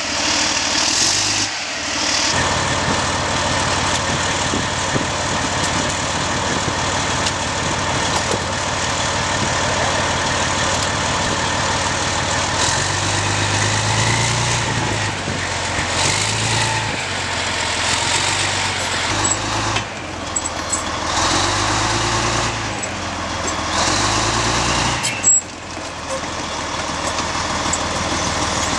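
A heavy military vehicle's diesel engine running, its low rumble swelling and easing at times. A single sharp knock stands out near the end.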